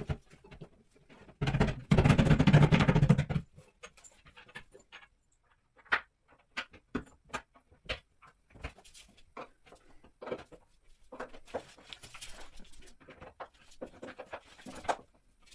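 Flat-pack particleboard cabinet frame being handled and fitted together: a loud scraping, rubbing noise about two seconds in, then scattered small clicks and knocks of fittings and a screwdriver.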